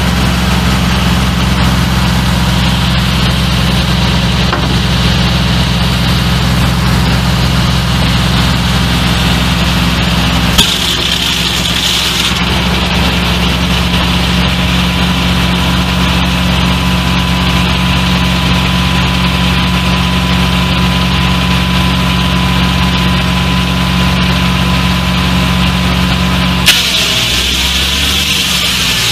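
Old tractor engine running steadily as it powers a circular sawmill. Two sharp clicks come about a third of the way in and near the end, and after each the engine's note shifts.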